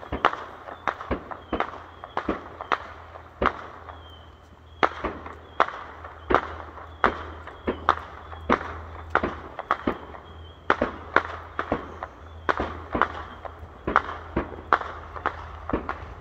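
Distant aerial fireworks display: a steady run of sharp bangs, about two or three a second, with a short lull about four seconds in.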